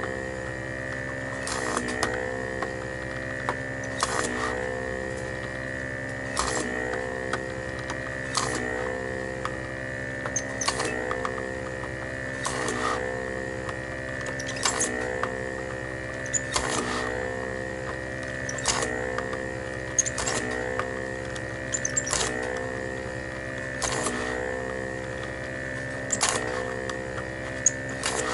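Vacuum pump of a homemade desoldering iron running steadily with a constant high whine. About every two seconds there is a sharp click and the pump's pitch briefly dips and recovers as the suction pulls the solder from one switch pin after another.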